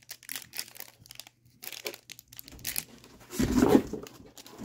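Thin plastic packaging crinkling and rustling in the hands, in many small crackles, with one louder rustling bump about three and a half seconds in.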